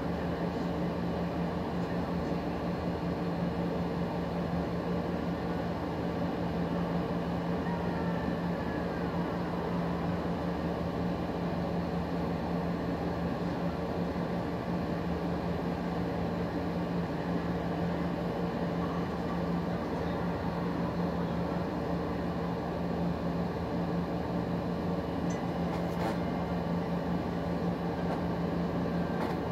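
A steady low machine hum with a fainter higher tone above it, over an even hiss; a faint tick near the end.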